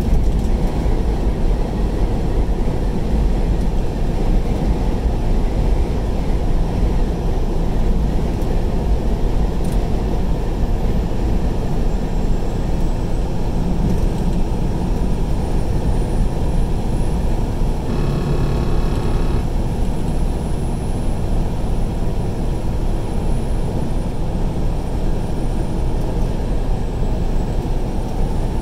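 Steady road and engine noise inside a vehicle's cab at highway speed, with a short pitched tone sounding for about a second and a half about two-thirds of the way through.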